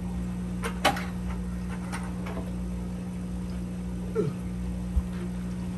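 Steady low hum of running aquarium equipment, with the sponge filter's air bubbling. Over it come a few light clicks about a second in, a short falling squeak just after four seconds, and a single knock about five seconds in.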